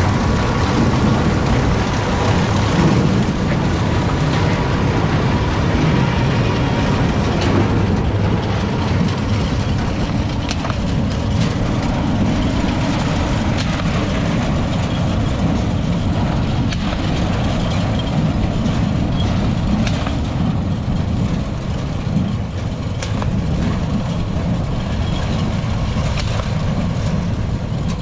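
Tractor-drawn TIM three-row beet harvester working while lifting beet: a steady engine drone with continuous clattering and rattling from the machine. It is loud and close at first, and the higher rattle fades as the harvester moves away down the row.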